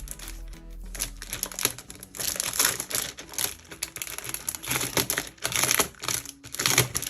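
Plastic wrapping crinkling and crackling as it is pulled off a membrane keyboard, in irregular bursts that start about a second in.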